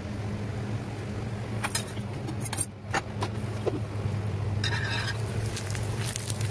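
A steady low hum in a kitchen, with a few light clicks and a short scrape about five seconds in as a roti is handled and turned on a flat iron tawa over a gas burner.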